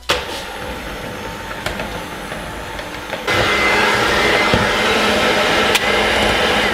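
Electric hand mixer running, its beaters working a thick quark-and-egg spätzle dough in a plastic bowl; it starts suddenly and gets clearly louder about three seconds in.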